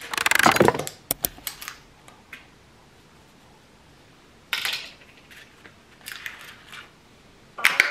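Paper food wrappers crinkling and rustling in several short bursts: a long, loud crinkle at the start, followed by a few light clicks, then briefer rustles about halfway through and near the end.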